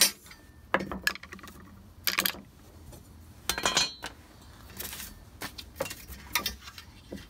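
Clicks, knocks and short rattles of a Ryobi cordless circular saw and its plastic Kreg Rip-Cut sled being handled on a wooden bench while the sled's handle is raised. The sounds come as a series of separate strokes, with a longer rattle about halfway through.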